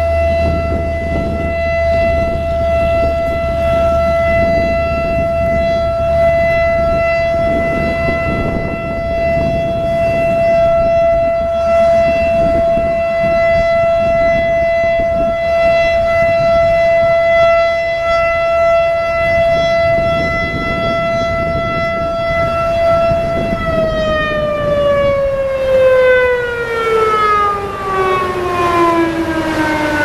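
American Signal Alertronic AL-8000 electronic outdoor warning siren sounding its steady alert tone, a tornado warning signal. About three-quarters of the way through, the tone cuts out of its hold and glides steadily down in pitch as the siren winds down.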